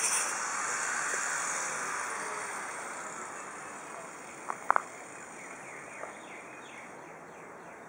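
Steady outdoor hiss that slowly fades, with a quick pair of sharp clacks about four and a half seconds in and one softer clack near six seconds.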